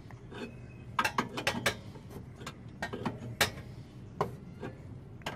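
Irregular metal clicks and clinks of a hand wrench working on the adjuster nuts of a Nissan 240SX's rear camber arm during a rear camber alignment.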